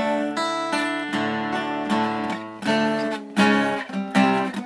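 Acoustic guitar strumming chords at a slow, even pace, a fresh chord struck about once a second.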